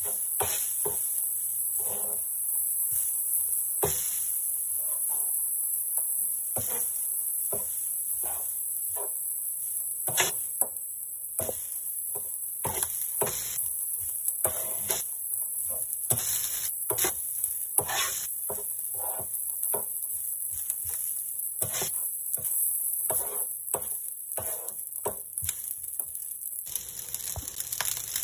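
Rice frying on an electric griddle with a steady sizzle, while a metal spatula scrapes and taps against the griddle surface many times as it turns and spreads the rice. The sizzle grows fuller about a second before the end.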